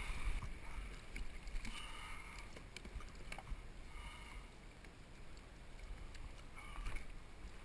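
Water lapping against the hull of a plastic sit-on-top kayak, with a low rumble and a few light knocks.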